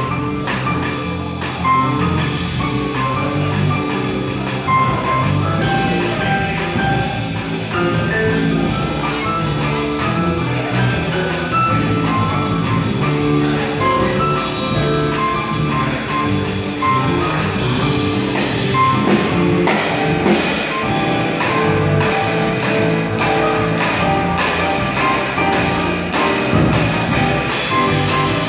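Small live band playing bossa nova, a melody of pitched notes over light percussion, with regular cymbal-like taps coming forward in the second half.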